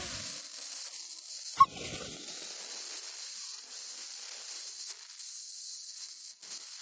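Dog giving two short whines or yelps, one at the start falling in pitch and a higher, briefer one about a second and a half in, over a steady hiss.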